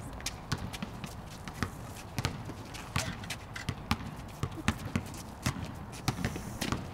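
Basketball bouncing on a concrete court amid players' running footsteps and shoe scuffs, a string of irregular sharp knocks several times a second.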